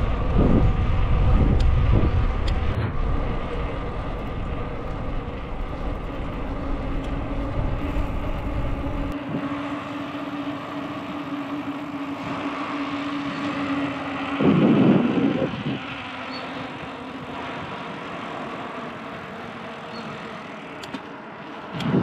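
A motor vehicle running past on the road, with a steady hum through the middle. A heavy low rumble stops suddenly about nine seconds in, and a short louder sound comes about fourteen and a half seconds in.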